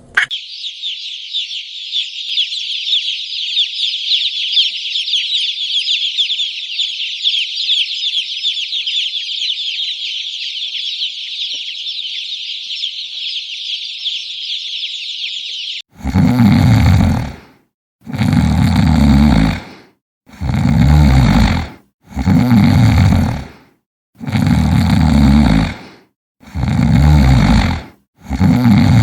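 Many chicks cheeping together in a dense, continuous chorus that cuts off suddenly about sixteen seconds in. Then a deep, rasping animal call repeats about every two seconds.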